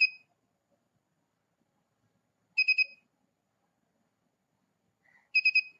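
The 5 V buzzer of an Arduino alarm clock sounding its alarm: short clusters of about four quick, high-pitched beeps, repeating roughly every two and a half to three seconds. It goes off because the clock's time has reached the set alarm time.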